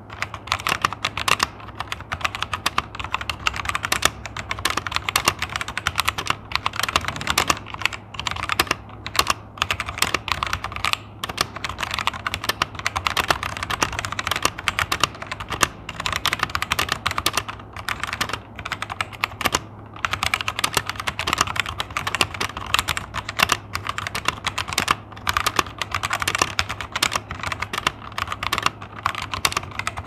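Fast, continuous touch-typing on a CPSTECH CT980 96% mechanical keyboard with linear red switches: a steady stream of keystroke clacks. The stabilized larger keys are clearly heard over the quieter switches.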